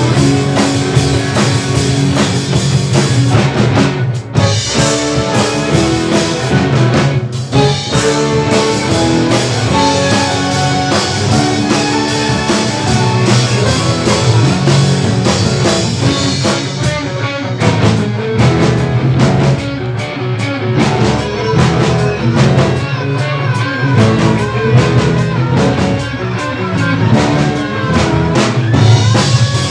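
Live jazz-rock fusion band playing: electric violin, electric guitar, bass, keyboards and drum kit, with rock drums. The band breaks off briefly twice, about four and seven seconds in, and a lead line with bending, wavering pitch runs through the second half.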